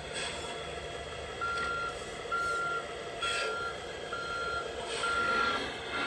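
Reversing beeper of an RC Mercedes-Benz Zetros 6x6 truck's sound module: one high steady beep about every second, starting about a second and a half in. The beeps sound over the module's steady running sound, with a couple of short hisses.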